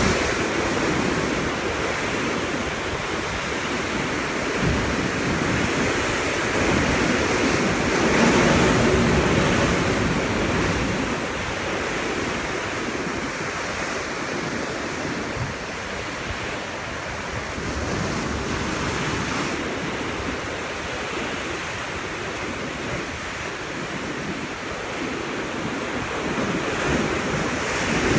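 Ocean surf surging and breaking against volcanic rock in a narrow cleft, a continuous churning wash of white water that swells louder about eight seconds in and again near the end.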